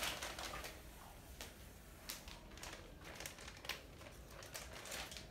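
A plastic snack packet crinkling as it is handled: a short stretch of crinkling at the start, then scattered faint crackles and clicks.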